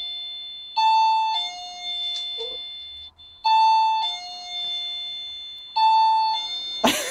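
Doorbell chime playing its two-note ding-dong, a higher note then a lower one, each fading away. It rings three times about two and a half seconds apart as the doorbell is tested. A short, loud burst of other sound comes at the very end.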